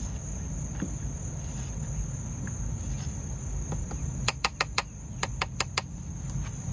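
Crickets chirring in one steady high-pitched drone, with a quick run of about eight sharp clicks a little past the middle.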